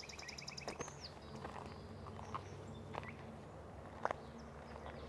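A songbird sings a rapid, high trill of about ten notes in under a second, followed by a short falling note. A few faint sharp clicks follow later over a low steady background hum.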